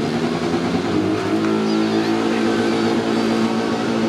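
Demolition derby car engines running, one holding a steady note for most of the stretch after about a second in.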